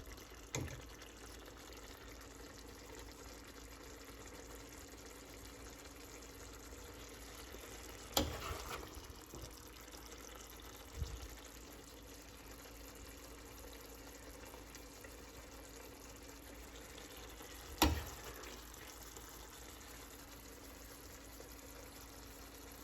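Ladling and plating the finished dish: a few sharp clicks of a serving spoon against the pot or plate, the loudest about eight and eighteen seconds in, over a steady low hum.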